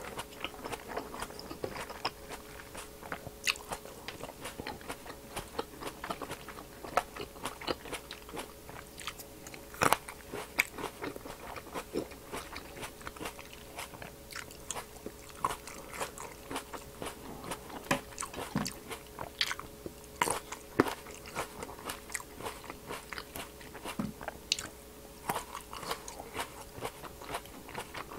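Close-miked biting and chewing of large green apple grapes: many sharp, irregular crunches as the skins are bitten through, one grape after another, with wet chewing between bites.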